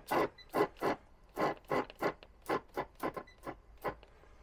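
Leak-detector bubble spray being sprayed onto an aluminium air-conditioning pipe joint in a quick run of short spray bursts, about three a second. This is a search for the refrigerant leak that an ultrasonic detector failed to pick up.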